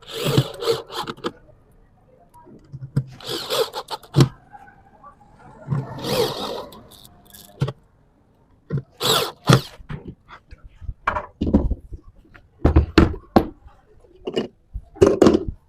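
Woodworking shop noise: a string of irregular wooden knocks mixed with short bursts of rasping noise from hand work on the wood, a dozen or so events spaced about a second apart.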